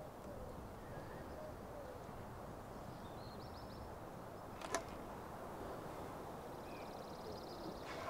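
Quiet forest ambience with faint bird chirps, and one sharp click a little past halfway through.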